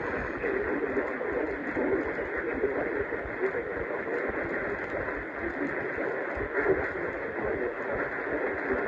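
Steady, hissing radio static on a narrow, muffled channel, with no clear words or alert tones.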